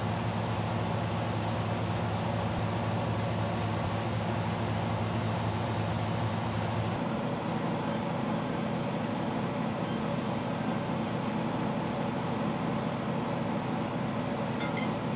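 A steady, loud mechanical hum over a noisy rush, its pitch stepping up about halfway through.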